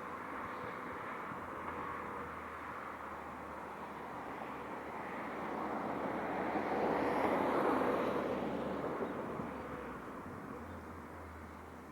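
Outdoor background noise as a vehicle passes, swelling to its loudest about seven to eight seconds in and then fading away, over a low steady hum.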